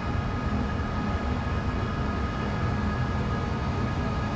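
A steady mechanical drone: a constant low rumble with a few unchanging thin tones held above it.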